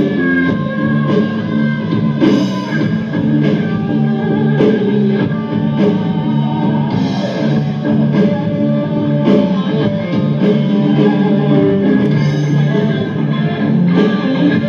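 Instrumental background music led by guitar.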